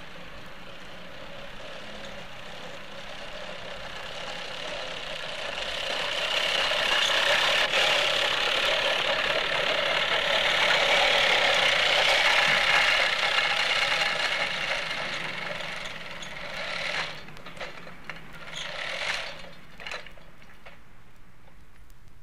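Gasoline lawnmower engine running, growing louder as it comes closer, loudest in the middle, then fading as it moves away, with two short surges near the end.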